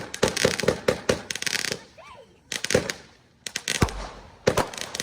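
Fireworks finale going off in quick succession: rapid sharp bangs and bursts of crackling, in clusters with brief lulls about two seconds and three and a half seconds in.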